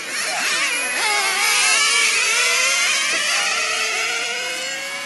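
Several 1/10-scale nitro touring cars' small glow engines running at high revs together, their overlapping pitches rising and falling as the cars accelerate, brake and pass.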